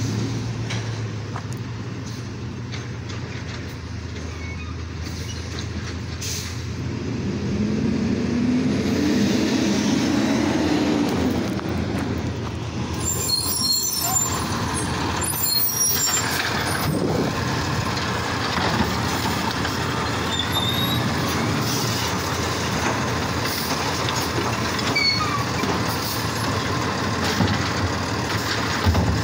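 Automated side-loader garbage truck pulling up: its diesel engine rises and falls in pitch as it approaches. About halfway through come high squeals and hissing from the air brakes as it stops, then it runs on steadily beside the waste carts.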